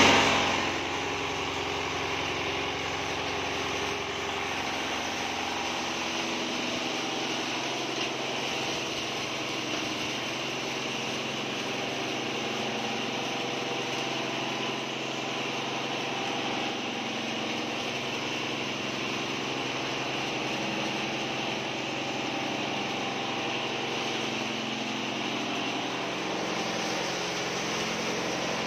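Posho mill grinding maize, driven by a 10 hp single-cylinder Andimax diesel engine running steadily under load: one dense, even din of engine and mill. It is briefly louder in the first moment, then holds level.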